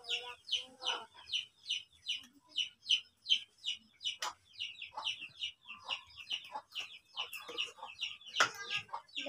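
Chicks peeping: a steady run of short, high, falling peeps, about four a second, with a few sharp clicks among them.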